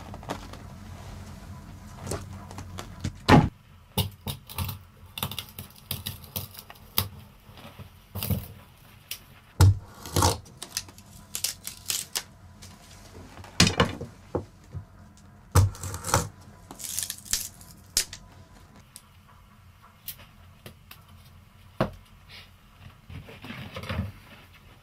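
Thin wooden sticks and a knife being worked by hand: irregular sharp knocks and clicks of wood, with quieter scraping between.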